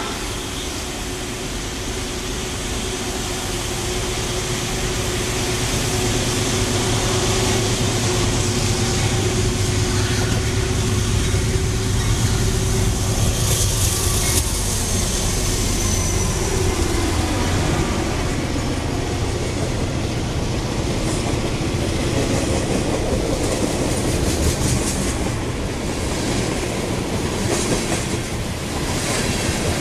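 Norfolk Southern freight train passing close by, led by GE Dash 9-40CW diesel locomotives. Their engine sound peaks about halfway through with a whine that falls in pitch as they go past. The freight cars follow, their wheels clickety-clacking over the rail joints.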